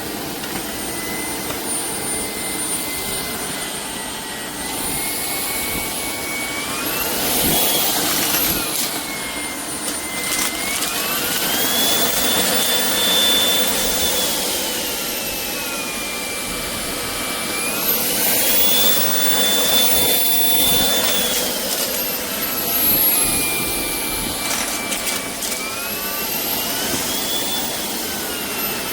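Shark IP3251 cordless vacuum running with a high motor whine over a steady rush of suction air. The whine rises in pitch and falls back again about three times as the motor speeds up and slows down.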